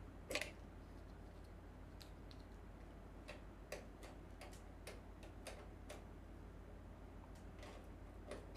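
Faint, irregular small clicks and taps from a USB pen drive being handled and plugged into the server, over a low steady hum.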